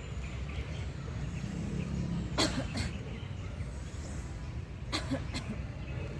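A woman coughing deliberately twice in quick succession, then twice more about two and a half seconds later: the paired coughs of a coughing and deep-breathing exercise, forcing out the air after a deep breath in to clear the lungs.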